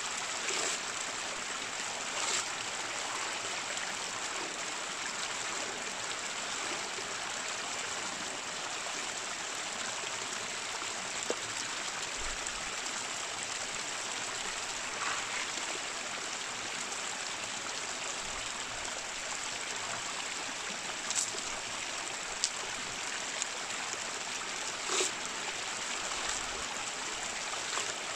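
A creek running over stones: a steady rush of flowing water, with a few faint clicks scattered through it.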